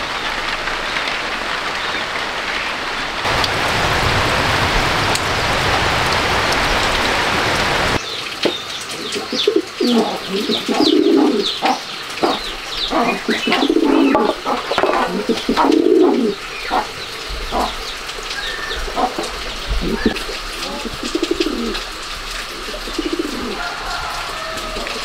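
A steady, even hiss that cuts off abruptly about eight seconds in. Then a dove coos over and over, with many short, sharp high notes in between.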